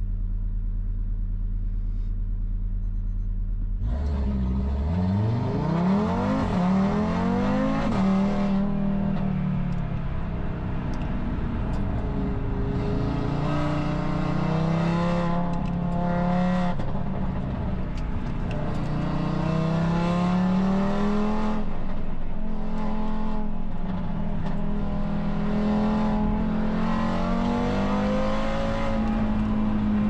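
Audi RS3's turbocharged five-cylinder engine heard from inside the cabin. A steady low drone gives way about four seconds in to a steep climb in revs under hard acceleration, and the revs then rise and fall for the rest of the lap.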